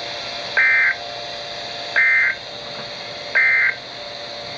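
Emergency Alert System end-of-message data bursts: three short, identical screechy digital tone bursts, each about a third of a second long and about a second and a half apart, marking the end of the warning. They are heard over a radio receiver's steady hiss.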